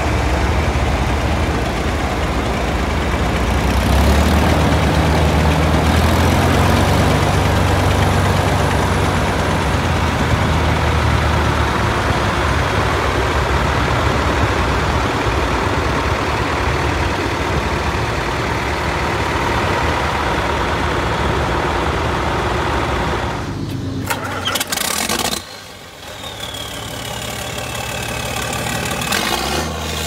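Tractor engine running steadily. The sound breaks off abruptly about three-quarters of the way through with a sharp click, and an engine is heard again rising in pitch near the end.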